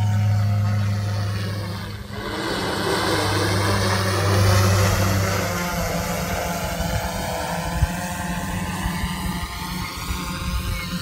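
Blade 350 QX quadcopter's propellers buzzing as it flies itself back and descends in return-to-home mode. The sound swells about two seconds in, is loudest around four to five seconds, then eases as the drone comes down.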